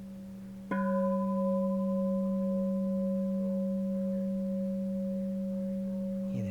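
Bronze Japanese Buddhist temple bell struck once with its hardened striker under a second in, then ringing on with a steady low tone and clear higher tones while the brightest overtones die away within about a second. The ring of an earlier strike is still faintly sounding before the hit.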